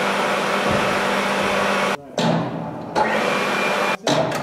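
Electric overhead chain hoist running under load as it lifts an engine, a steady whirring motor hum. It runs in two stretches of about two seconds with a short stop between them, then gives a brief restart near the end.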